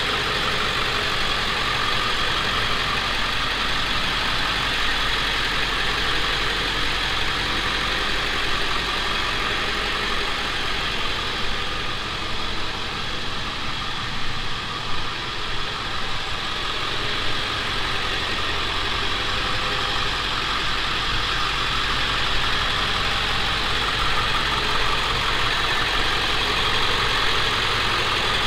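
1999 Ford F250's 7.3-litre Powerstroke turbo diesel V8 idling steadily.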